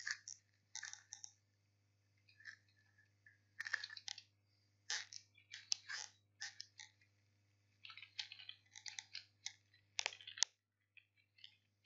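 Computer keyboard being typed on in short, irregular runs of faint key clicks with pauses between them. A faint low hum underneath cuts off near the end.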